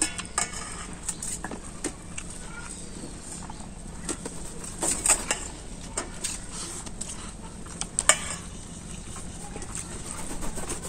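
Stainless-steel spoon and plates clinking now and then during a meal eaten by hand, with a few sharper clinks about halfway through and again later.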